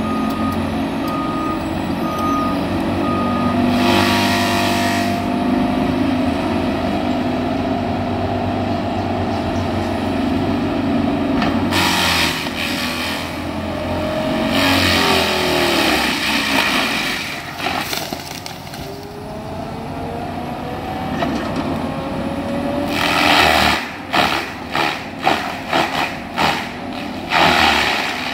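Cat 336E excavator running hard while its Denis Cimaf 150e forestry mulcher head grinds into a standing pine. The engine and hydraulics drone steadily, with loud bursts of chipping noise as the cutter teeth bite the trunk; near the end these come as a quick series of pulses. A short run of beeps sounds in the first few seconds.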